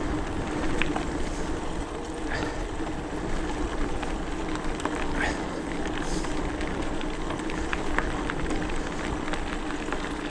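Hardtail e-mountain bike rolling along a forest trail: a steady rushing noise of tyres and moving air, with scattered clicks from the bike over the ground.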